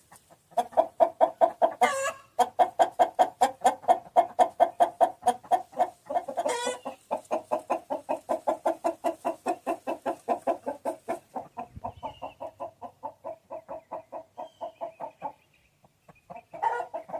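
Chicken clucking in a rapid, even run of about five clucks a second. Louder, higher calls break in about two seconds in and again near six seconds, and there is a short pause near the end.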